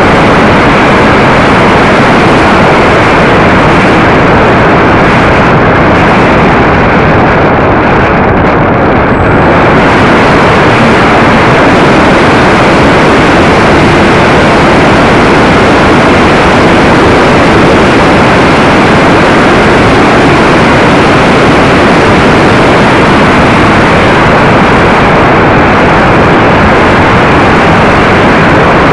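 A radio-controlled model T-28 airplane in flight, heard through a camera mounted under its fuselage: a loud, steady rush of motor, propeller and wind noise. About a third of the way in, the higher part of the sound thins for a couple of seconds.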